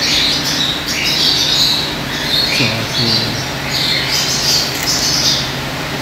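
Parrots in an aviary squawking, giving one harsh call after another.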